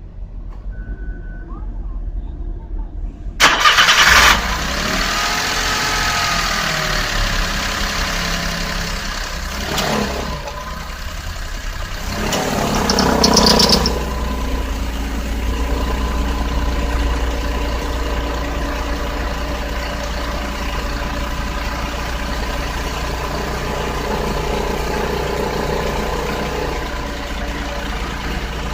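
Nissan Otti (H91W) 660 cc three-cylinder engine, heard at the engine bay: it starts suddenly about three and a half seconds in, revs rise and fall, then it settles into a steady idle with a constant tone. The idle carries the abnormal engine-room noise that is being checked.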